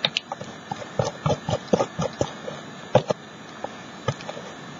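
Quick, irregular sticky taps and clicks, about twenty in a few seconds: fingertips dabbing tissue-paper blossoms onto a glued canvas and pulling away from them.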